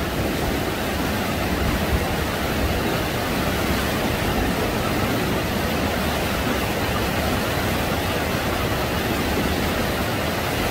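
Shallow sea surf washing and foaming, a steady rushing noise with no breaks.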